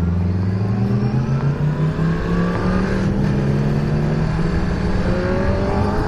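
Honda CBR600F's inline-four engine under acceleration, its revs climbing steadily through the gear toward the high-RPM range where its power comes in late, with wind rushing over the helmet microphone.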